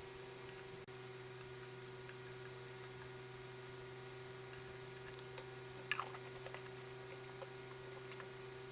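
A tool scratching and scraping kinetic sand: a few faint scratches and clicks, the sharpest cluster about six seconds in, over a steady electrical hum.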